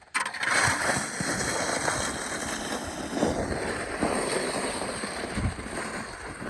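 A sled sliding down a snowy hill: a steady rushing scrape with wind buffeting the microphone. It starts abruptly, and a few low thumps come from bumps along the way.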